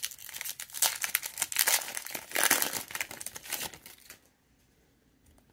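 Metallic plastic wrapper of a Kayou Naruto trading-card booster pack crinkling and tearing as it is pulled open by hand, a run of crackles that stops about four seconds in.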